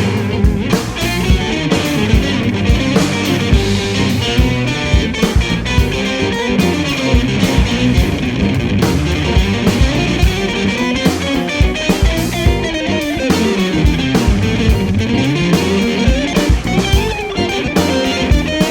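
Band music led by electric guitar with bending, gliding lines over drums and bass.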